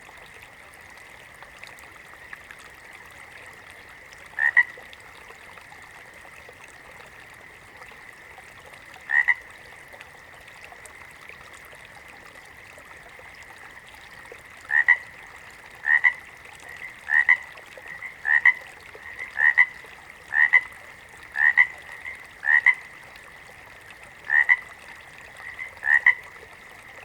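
A frog croaking in short calls, spaced several seconds apart at first, then about one a second in the second half, over a faint steady background tone.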